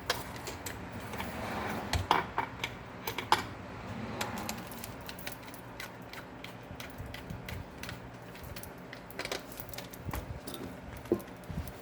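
Irregular clicks and clinks of hand tools and small metal parts being handled, over a low steady hum.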